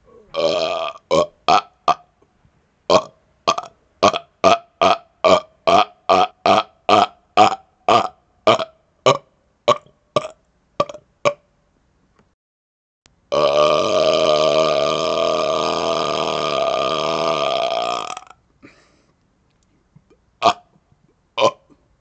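A man burping: a rapid-fire string of about two dozen short belches, two or three a second, then after a pause one long belch lasting about five seconds, and two more short burps near the end.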